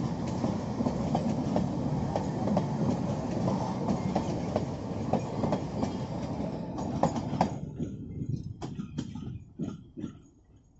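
Narrow-gauge Kangra Valley Railway passenger coaches rolling past close by: a steady rumble with a regular clickety-clack of wheels over rail joints. The rumble drops away suddenly as the last coach passes, about seven seconds in, leaving a few fading clicks.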